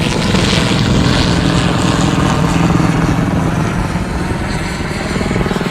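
Motor vehicle engine running steadily close by, a droning hum that swells a little in the first few seconds and eases off toward the end.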